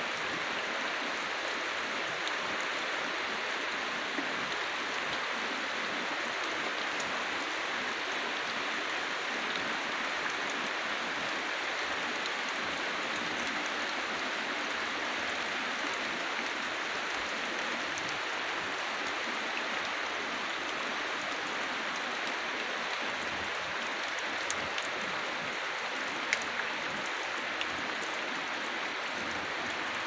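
Steady rain falling on foliage, an even hiss with a few sharper drop ticks a little before the end.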